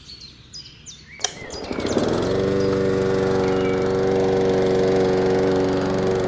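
A click, then an engine that builds over about a second and settles into steady running. It serves as the mini tractor's engine sound.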